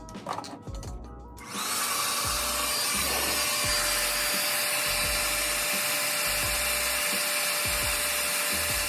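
Hair dryer switched on about a second and a half in, blowing steadily with a constant motor whine, drying the freshly applied wig glue until it turns clear. Background music with a steady beat plays throughout.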